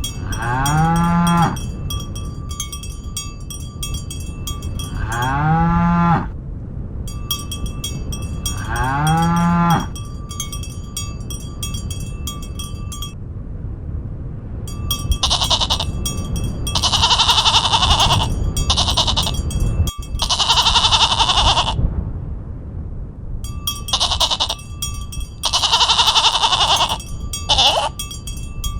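Farm livestock calling with bells clanking. Three short, low calls rising in pitch come in the first ten seconds. Later a run of harsh bleats comes in groups.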